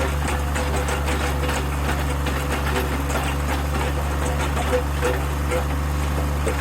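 Power earth auger's engine running at a steady speed while boring pilot holes in the ditch.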